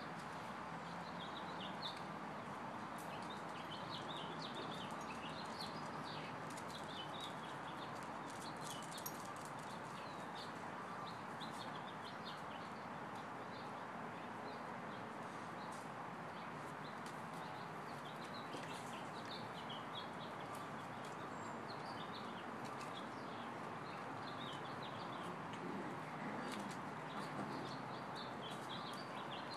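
Frequent short, high-pitched chirps and squeaks in clusters over a steady background hiss, with a few light clicks.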